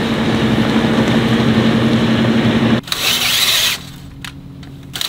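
A passing towboat's diesel engine drones steadily with a low hum. About three seconds in it gives way to a cordless DeWalt drill running briefly as it bores into a metal plate, with a whine that rises and falls.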